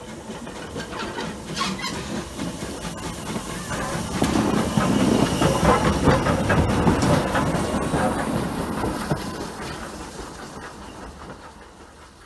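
Steam tank locomotive No. 24, Calbourne (an LSWR O2 class 0-4-4T), passing close by on the next track: hissing steam and clattering wheels and motion that swell to a peak about halfway through, then fade as it draws away.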